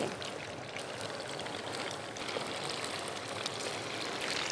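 Thin slices of rice-flour-coated beef deep-frying in hot oil at about 180 °C: a steady crackling sizzle.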